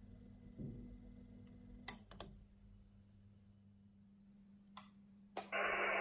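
Icom IC-706MKIIG's internal cooling fan running with a faint, steady low hum, very low in noise. It is wired through a 200-ohm resistor so it runs all the time rather than only on transmit. A few sharp clicks, then about five and a half seconds in a loud steady hiss of receiver noise from the radio's speaker starts.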